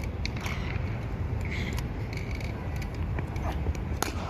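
Steady low outdoor rumble with two sharp clicks, one at the very start and one near the end, and faint scattered background sounds.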